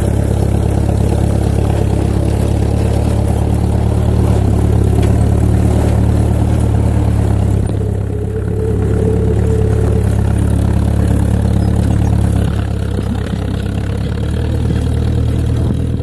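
Tractor engine running steadily under load as it tows a hay crimper through windrowed hay, with a brief dip in loudness about halfway through.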